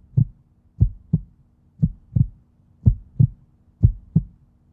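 Heartbeat sound effect: pairs of low thumps, a lub-dub about once a second, over a low steady hum.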